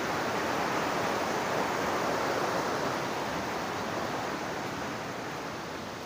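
Steady rush of river water, an even hiss that fades a little toward the end.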